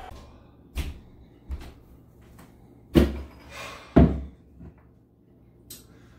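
A couple of light knocks, then two loud thuds about a second apart, each dying away quickly.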